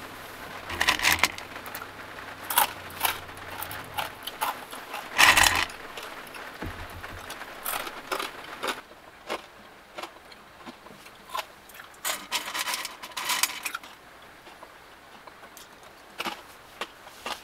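Fingers rummaging through crisp dried small fish in a cooking pot: irregular scrapes, rustles and clicks of the fish against the pot, in short bursts with pauses between.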